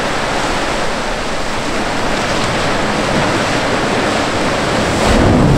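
Ocean surf breaking on rocky shore: a loud, steady rush of waves, with a heavier, deeper surge about five seconds in.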